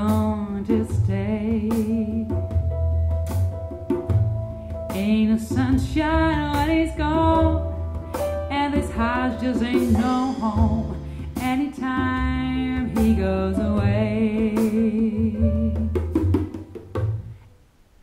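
Vocal music with a sung melody and vibrato over bass and drums, played back through a Neumann KH 120-II studio monitor. It fades out near the end.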